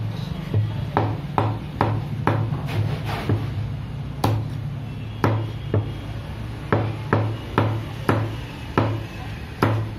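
Cleaver chopping skinless chicken into pieces on a wooden log chopping block: a run of sharp knocks, about two a second and slightly irregular. A low pulsing hum runs underneath.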